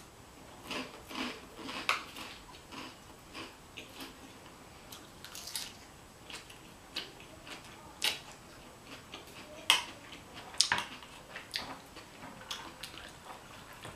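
Chewing and crunching of a salad with croutons and lettuce, with a fork clicking against the bowl. Irregular crunches and clicks, the sharpest about 2, 8, 10 and 11 seconds in.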